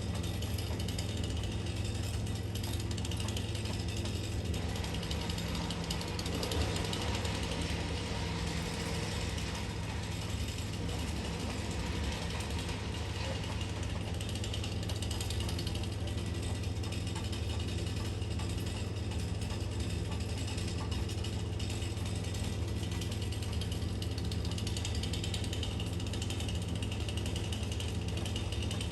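An engine running steadily with an even low hum, over a dense patter of heavy rain.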